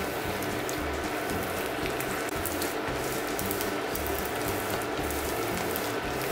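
Sticky-rice cakes deep-frying in a pan of hot oil: a steady sizzle with fine crackles throughout.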